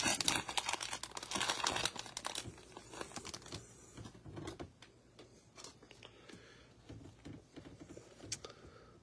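Trading-card pack wrapper being torn open and crinkled by hand for the first couple of seconds. After that come quieter scattered crinkles and light clicks as the cards are handled, and a brief crinkle near the end as the wrapper is crumpled.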